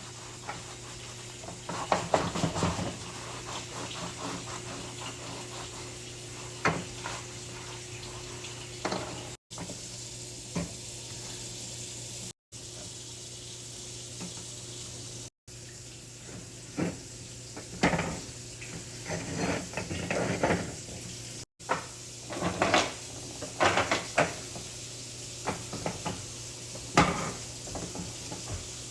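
Scrubbing and scraping at a cooked-on food mess with a scrub sponge and pot scraper, with clinks of pots and pans, in short irregular strokes. A steady low hum runs underneath, and the sound drops out briefly several times between cut-together clips.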